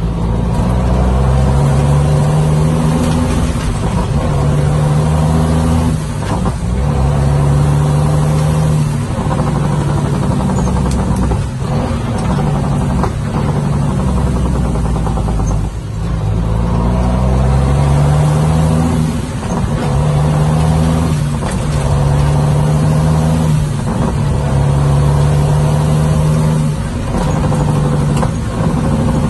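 Dump truck's diesel engine pulling under load, its note breaking off briefly and picking up again every two to three seconds as the manual gearbox is shifted through the gears. The engine climbs in pitch near the start and again about halfway through.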